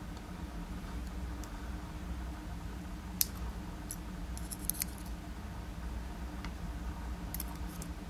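Light metallic clicks and taps of a small tool working inside a DOM iX dimple-lock cylinder as its driver pins are taken out. There is a sharp click about three seconds in, a quick cluster of clicks a second or so later and a few more near the end.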